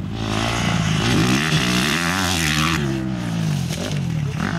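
Motocross dirt bike engine running close by and revving up and down, then settling to a steadier note near the end.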